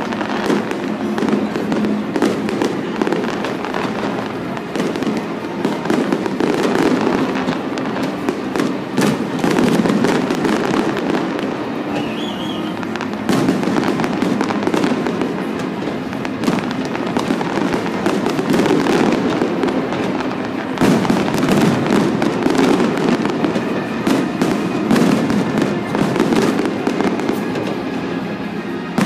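Large fireworks display: a dense, continuous barrage of bangs and crackle, many shells going off in quick succession over a steady low rumble.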